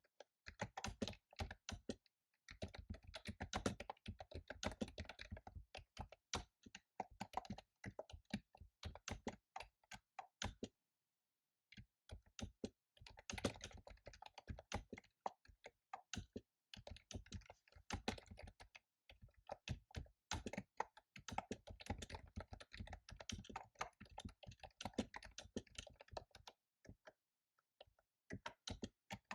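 Fast typing on a computer keyboard: rapid runs of keystrokes broken by brief pauses about two seconds in, about eleven seconds in, and near the end.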